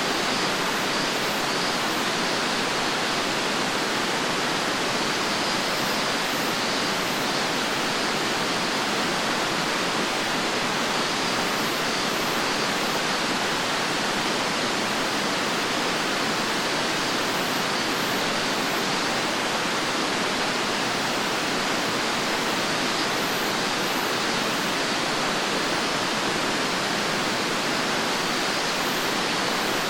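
Fukuroda Falls, a large waterfall, pouring and splashing onto rock in a steady, unbroken rush of water.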